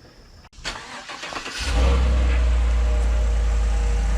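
A vehicle engine starts, catching about one and a half seconds in, then runs steadily and loudly.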